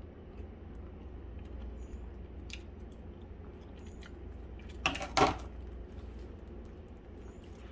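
Thick onion gravy simmering in a frying pan, with small scattered pops and crackles over a low steady hum. About five seconds in there are two loud knocks close together.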